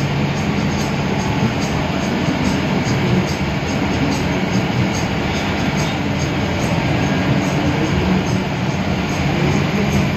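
Cabin noise inside a moving air-conditioned bus: a steady low engine drone mixed with road noise, with a faint regular ticking at about three a second.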